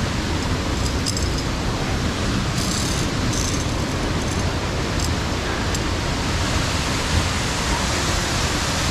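Steady rush of a large waterfall close by, an even noise with no let-up, with a few faint high clicks over it.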